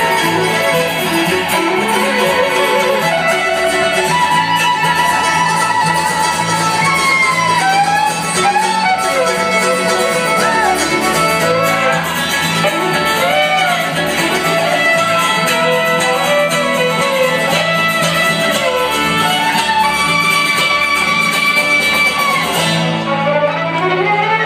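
Live bluegrass string band playing, a fiddle carrying a sustained, wavering melody over strummed guitar and other plucked strings.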